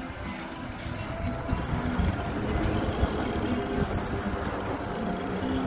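Wind rushing over a handlebar-mounted microphone as an electric fat bike rides across hard-packed sand, with a steady low rumble from the bike and its fat tyres rolling over the sand.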